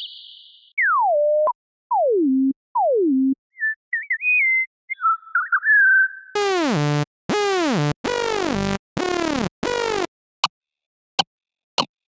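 Software-synthesizer imitations of tropical bird calls, built with frequency modulation. First come three whistles that slide steeply down in pitch, then a warbling chirp. About six seconds in there are five loud, buzzy calls, each curving down in pitch, followed by a few short clicks.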